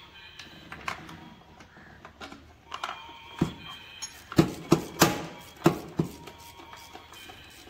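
Metal parts and hand tools clinking and knocking in a car engine bay as engine parts are handled around the oil filter housing. The sounds are irregular sharp clicks, with a handful of louder knocks between about four and six seconds in.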